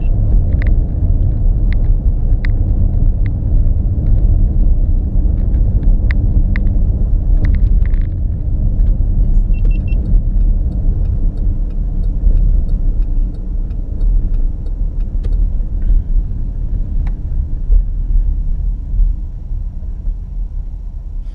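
Road and engine noise inside a moving car's cabin: a steady low rumble, with faint scattered light clicks and ticks over it. The rumble eases near the end.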